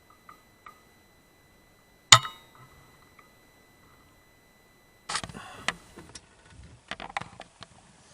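Faint steady high electronic whine with two small beeps, then about two seconds in a single sharp crack of a Weihrauch HW100S .22 pre-charged air rifle firing. From about five seconds in come scattered handling clicks and rustling.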